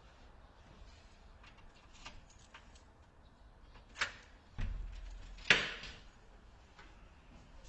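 Keys jingling faintly at the lock of a metal-framed glass entrance door, then a sharp click of the lock about four seconds in. A dull thud and a louder clank with a short ring follow as the door is pushed open.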